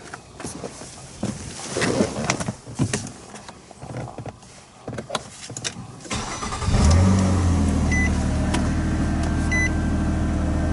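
A 2011 Nissan Maxima's 3.5-litre V6 is started about six seconds in, after a few clicks and knocks. It catches quickly and settles into a steady idle on its first run with a new oil pressure switch. A car's warning chime beeps over the idle about every second and a half.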